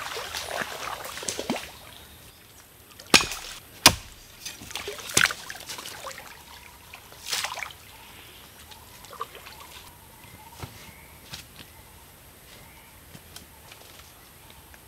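Shallow stream water sloshing and splashing as someone wades and handles a mesh funnel-net fish trap, with a few sharp splashes in the first half and quieter trickling and dripping after.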